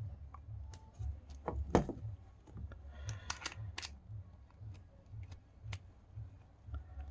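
Small clicks and taps of a spinning reel's handle knob parts being handled as the knob's top cap and cover are screwed back on, with a cluster of sharper clicks about a second and a half in and again about three seconds in. A faint low pulse repeats about twice a second underneath.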